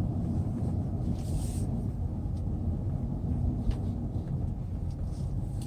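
Hyundai Sonata Brilliant heard from inside the cabin while driving slowly: a steady low engine and road rumble, with a few faint ticks.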